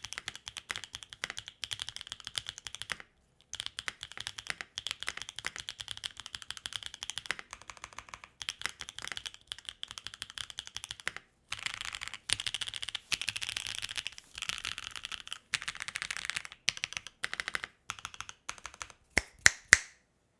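Typing on a mechanical keyboard fitted with factory-lubed BSUN Golden Apple tactile switches on a carbon plate: quick runs of keystrokes with short pauses. Near the end come three louder single strokes.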